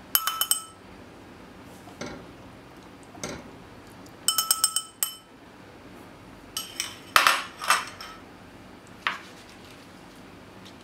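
Kitchen utensils and dishes clinking: bright, ringing clinks in quick clusters at the start, about halfway and past two-thirds of the way, with a few single knocks in between.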